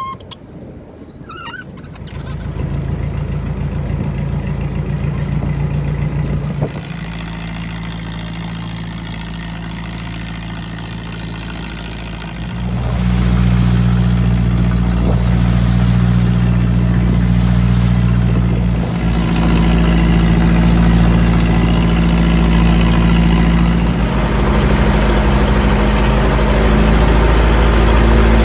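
A fishing boat's inboard engine running, a steady drone with a clear pitch that shifts several times and gets louder from about 13 seconds in. Before the engine comes in, in the first couple of seconds, there are a few high squeaks as a rope is hauled round a winch drum.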